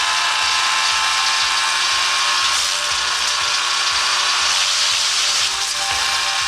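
Woodchipper running steadily: a dense, even mechanical noise with a constant motor hum.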